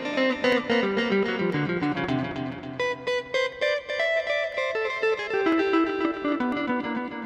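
Electric guitar played through a Zoom G1X ON multi-effects pedal: a quick single-note melody of separately plucked notes in a chicha lead tone with reverb.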